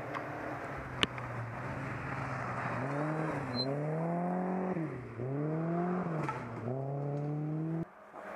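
Rally car's engine accelerating hard, the revs climbing, dropping at an upshift about five seconds in, climbing again and dropping at a second upshift; the sound cuts off abruptly near the end. A sharp click about a second in.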